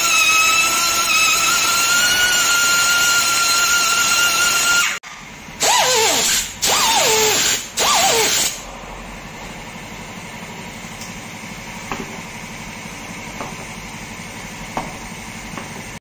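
A high-speed pneumatic tyre-shop tool runs with a steady whine for about five seconds. Then an air drill is triggered in three short bursts, each falling in pitch as it spins down, reaming the puncture hole through the tread for a mushroom-plug repair.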